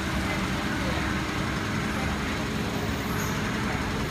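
Factory machinery running with a steady hum and hiss, a low drone underneath and no distinct knocks or strokes.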